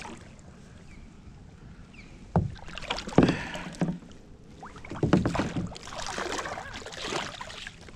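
A few knocks against a plastic kayak hull and water splashing as a hooked catfish is brought alongside the kayak. The loudest knock comes a little past three seconds in.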